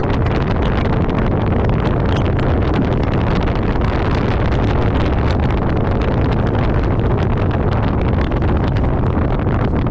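Polaris RZR XP4 side-by-side running steadily under way, with wind noise on the microphone.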